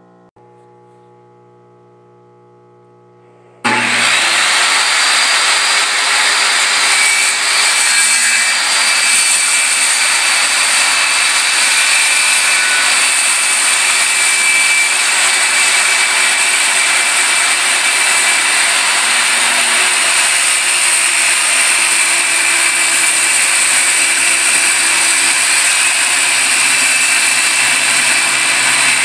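Faint guitar music, then about three and a half seconds in a Porter-Cable 15-amp circular saw cuts in abruptly, loud and steady. It runs on as it rips off the bottom of a solid mahogany door along a marked line.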